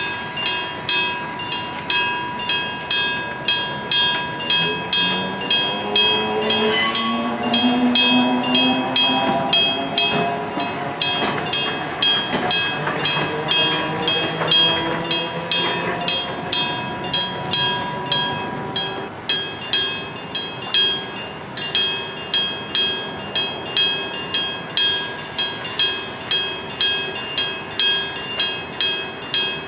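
An electric-bell level crossing rings, its struck gong repeating in an even rhythm. Partway through a train passes with a sound that rises in pitch, and a brief high tone sounds about seven seconds in.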